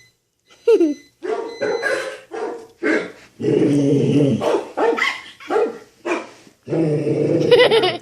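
A dog barking repeatedly in short calls, with two longer drawn-out calls about three and a half and seven seconds in.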